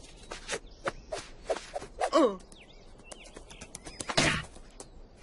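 Cartoon sound effects from an animated film clip: scattered soft clicks and thuds, a short squeaky cartoon-animal vocal sound about two seconds in, and a louder rush of noise about four seconds in.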